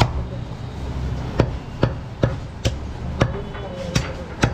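Meat cleaver chopping goat meat and bone: about eight sharp strikes, the first at the start and the rest coming roughly twice a second from a little over a second in.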